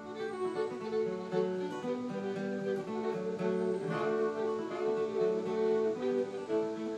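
Background music: acoustic guitar playing a gentle picked melody, with a bowed string instrument such as a fiddle.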